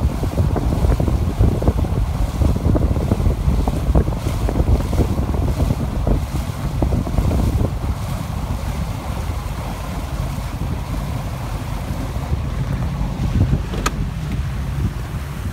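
Wind buffeting a phone's microphone on a boat at sea, over a steady low rumble and water noise. A single short tick comes near the end.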